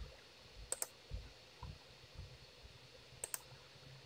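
Faint computer mouse clicks: a single click about three-quarters of a second in and a quick double click near the end, with a few soft low thuds in between.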